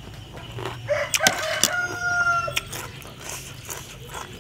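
A rooster crows once, starting about a second in: a call of about a second and a half that rises and then ends on a long held note.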